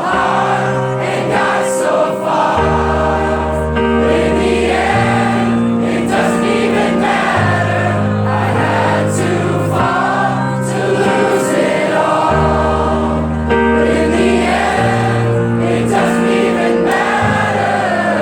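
A crowd singing along together over sustained keyboard chords that change every two to three seconds, in a live concert hall.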